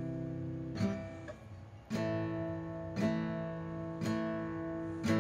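Acoustic guitar being strummed in a song's intro, a fresh chord about once a second, each left ringing into the next.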